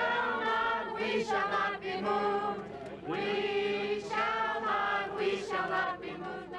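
A crowd singing a protest song together in unison, in long held notes broken into short phrases.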